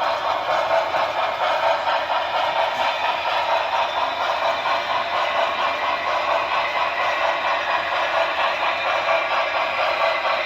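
HO-scale Broadway Limited Imports Paragon4 New York Central 4-6-4 Hudson running under power, its onboard sound system playing steady steam-exhaust chuffing through a small speaker, with the clatter of the train rolling on the track.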